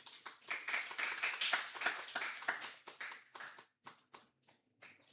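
A small group clapping briefly, dense at first and then thinning out to a few scattered claps.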